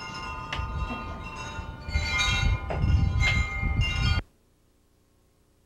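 Bell-like chimes ringing over a bed of held tones, struck a few times, then cut off suddenly about four seconds in, leaving near silence.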